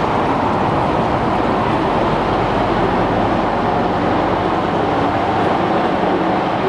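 Steady, unbroken rumble of road traffic, with a faint low hum running through it.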